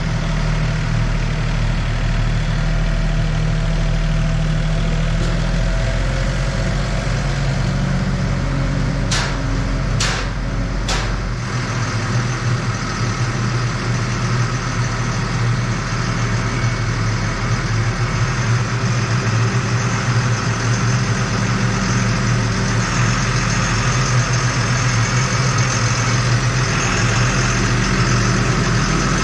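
Heavy farm vehicle's diesel engine running steadily at idle, its note shifting about twelve seconds in. Three sharp clicks or knocks come about a second apart near the middle.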